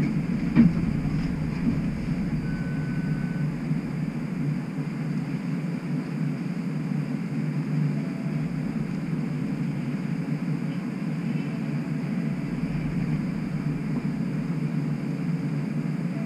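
Steady low hum of a streetcar standing at a stop, heard from inside the car, with a sharp click about half a second in and a brief high beep about three seconds in.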